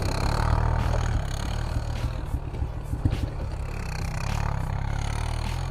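Honda CRF100F dirt bike's small single-cylinder four-stroke engine running at low, fairly steady revs while riding through snow, with a few sharp clicks.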